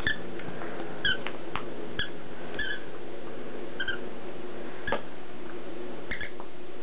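Squeaker in a plush disc toy squeaking as a puppy chews it: about seven short, irregularly spaced squeaks, with a few soft knocks between them.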